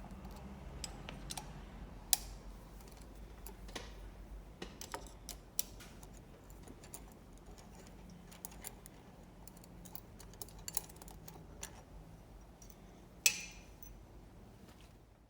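Irregular light metallic clicks and clinks of tools and bolts as the head bolts of an Encore 700 diaphragm dosing pump are undone, with a sharper clink about two seconds in and a ringing one near the end, over a low steady hum.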